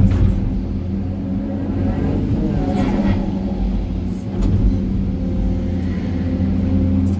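Hydraulic excavator's diesel engine running steadily under load, heard from inside the cab, with the hydraulics working as the bucket dumps and the boom swings back; the noise surges briefly about three seconds in.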